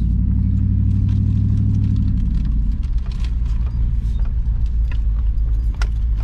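Vehicle running, heard from inside the cab while it drives slowly over a dirt road: a low engine hum and road rumble, with scattered small rattles and clicks. The engine hum eases about two and a half seconds in.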